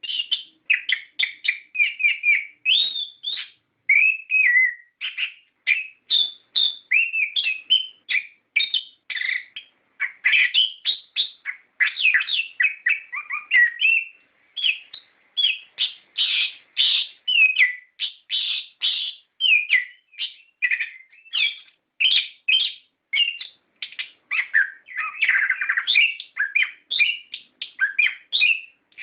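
Orange-headed thrush singing a long, continuous, varied song: rapid strings of quick sliding whistles and chirps that hardly pause, with one brief lull about halfway through.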